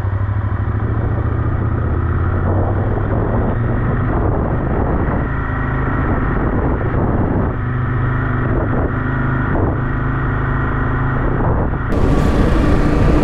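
KTM 890 Adventure R's parallel-twin engine running at a steady, even pitch.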